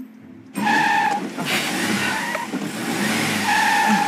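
A manual-transmission car's engine revs hard as the car is pulled away clumsily by an inexperienced stick-shift driver. The tyres squeal twice, about a second in and again near the end.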